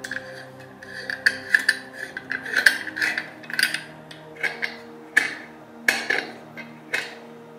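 Light metallic clicks and taps, a dozen or so at irregular intervals, each ringing briefly, as a metal oil-lamp burner is gripped and turned into place on its brass font.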